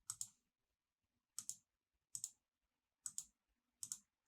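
Computer mouse button clicked five times, spaced about a second apart, each click a quick press-and-release pair.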